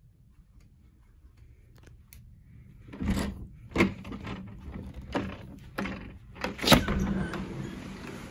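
A cruise ship cabin's sliding glass balcony door being opened, with several clunks and knocks from about three seconds in, then a steady rush of wind and sea once it is open.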